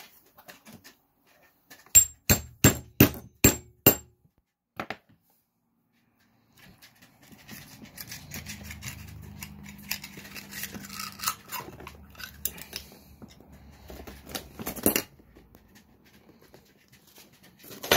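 A knife being worked into a raw oyster's shell to shuck it. About two seconds in comes a quick run of sharp clicks of the blade on the shell. Later there are scattered clicks and scrapes over a low hum, with one louder click near the end.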